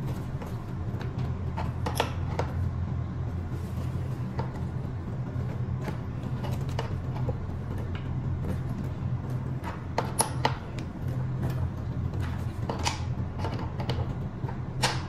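Ratcheting wrench turning the top nut of an electric scooter's front spring shock absorber: scattered metallic clicks and clinks at an irregular pace, with a few louder ones, over a steady low hum.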